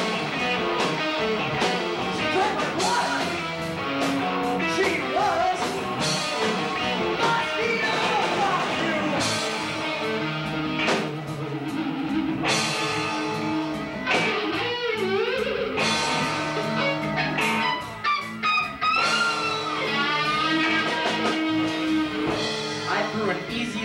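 Live rock band with two electric guitars, bass and drum kit playing a passage without words, with wavering, bending guitar notes in the second half.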